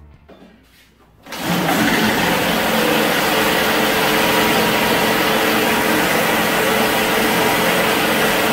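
Music fading out, then a little over a second in a homemade tracked tank's engine comes in, running steadily and loudly.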